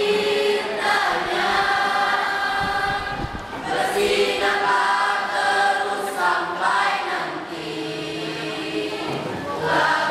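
Mixed choir of male and female voices singing an Indonesian pop song in parts, with held chords that shift every second or so.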